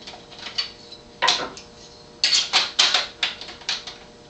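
Sheet-metal plate over a PC case's expansion-card slots rattling and clicking against the case and card brackets as it is lined up and pushed into place. There is a clatter about a second in, then a quick run of clicks and knocks in the second half.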